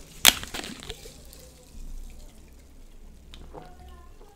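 Drinking from a plastic soft-drink bottle: a brief burst of noise just after the start, then faint liquid glugging and swallowing about three and a half seconds in.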